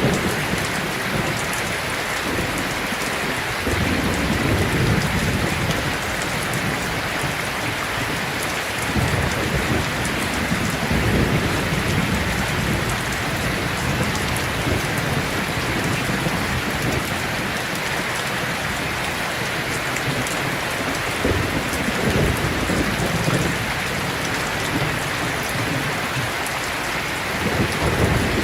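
Heavy rain falling steadily, with low thunder rumbling in swells every few seconds, stronger around 4, 9–12 and 21–23 seconds in.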